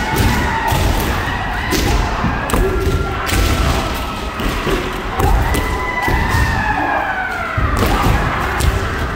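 Many kendo players sparring at once: bamboo shinai clack against armour and each other, stamping footwork thuds on the wooden floor, and long drawn-out kiai shouts overlap continuously.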